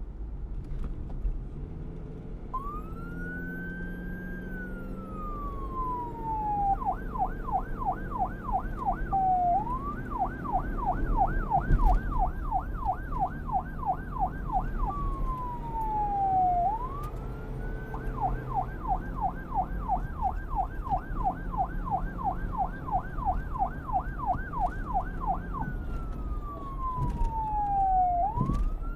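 Police car electronic siren switching between a slow wail, which rises and then falls away over a few seconds, and a fast yelp of about three to four quick sweeps a second. It goes wail, yelp, wail, yelp, wail, over a steady low rumble.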